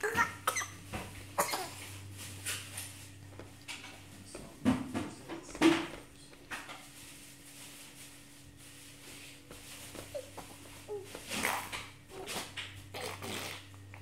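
Five-month-old baby blowing raspberries and making spitting, sputtering noises with his lips, in short scattered bursts that come in three bunches with pauses between.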